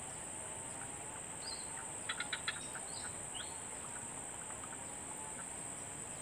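Steady high-pitched drone of insects, with scattered bird chirps and a short run of four or five quick ticks about two seconds in.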